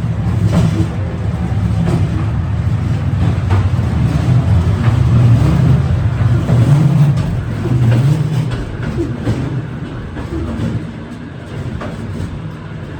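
Cable-hauled Scenic Railway carriage rumbling and rattling on its track as it climbs the steep incline, with scattered clicks and knocks from the wheels and carriage. The rumble eases somewhat after about eight seconds.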